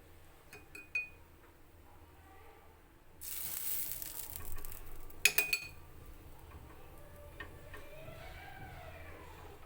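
Kitchen cookware being handled: light clicks, a short sizzling hiss lasting about two seconds, then a few sharp metal clinks of a utensil against a pan.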